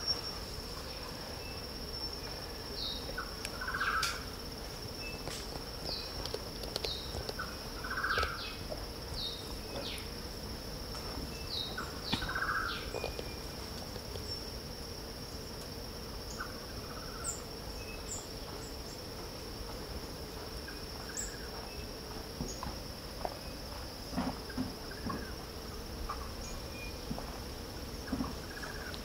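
Forest insects droning on one steady high pitch, with a bird calling a few times, about every four seconds, and short chirps in the first half.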